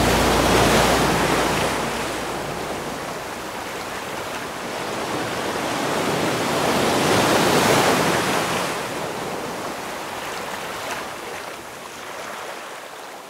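Small waves breaking and washing up onto a beach, the surf swelling twice and then fading out near the end.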